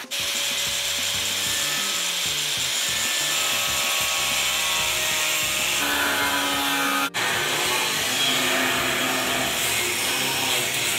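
Corded angle grinder with a cut-off disc cutting through a strip of scrap iron: a loud, steady grinding hiss over the motor's whine, with one very brief break about seven seconds in.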